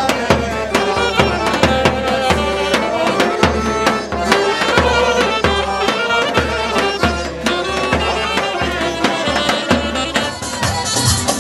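Live Bulgarian folk band playing a dance tune: accordion, saxophone and acoustic guitar over a tapan, a large double-headed drum, beating a steady pulse of about one and a half to two strokes a second. A brighter, shriller sound joins near the end.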